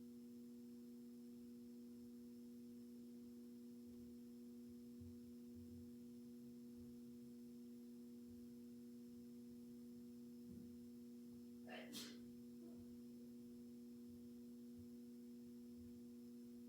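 Near silence apart from a faint, steady low hum, with one brief faint click about twelve seconds in.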